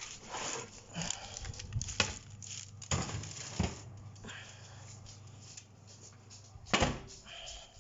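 Kitchen handling noises: scattered sharp knocks and clicks, with the loudest about two seconds in and again near the end, over a faint steady low hum.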